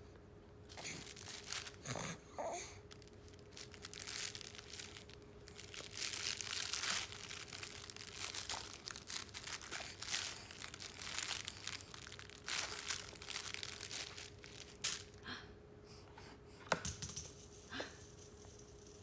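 Soft fabric baby book with a crinkly lining being grabbed and squeezed, crinkling in irregular bursts, over a faint steady hum.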